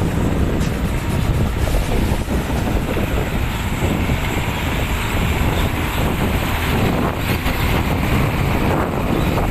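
Heavy diesel earthmoving machinery (excavator and dump trucks) running steadily at a construction site, a dense low rumble with wind buffeting the microphone.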